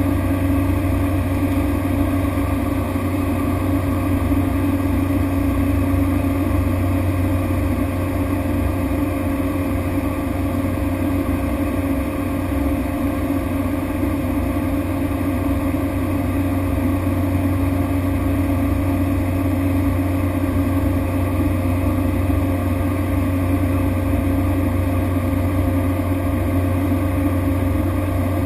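Steady drone of a Cessna Grand Caravan's single Pratt & Whitney PT6A turboprop and propeller, heard from inside the cabin during flight. It holds an even pitch and loudness with a low hum and a couple of constant higher tones.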